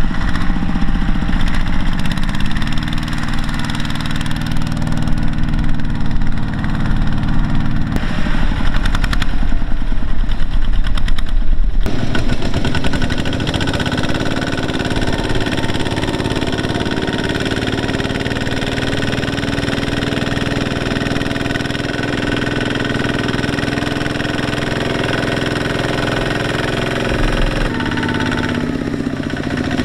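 Kubota two-wheel tractor's single-cylinder diesel engine running steadily while pulling a trailer loaded with sacks of rice through a muddy field. Its sound changes suddenly about twelve seconds in, to a steadier, higher-pitched run.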